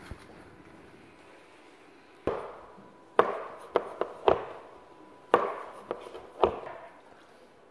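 A knife chopping down through a roll of phyllo baklava, knocking on the stone worktop at each cut: about eight sharp knocks in two quick groups, each with a brief ring.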